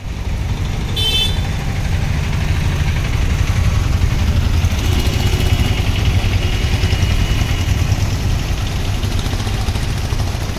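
Steady low vehicle engine rumble, with a short high-pitched toot about a second in and a faint held high tone in the middle.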